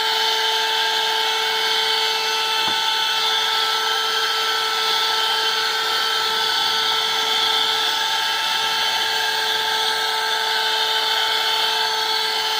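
Handheld car vacuum cleaner running steadily: a high motor whine over rushing air as its nozzle sucks up dust from the car's floor.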